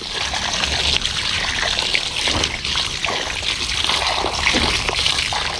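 Water running and splashing as a catch of fish is washed in a container, with a steady rush of water and irregular small splashes.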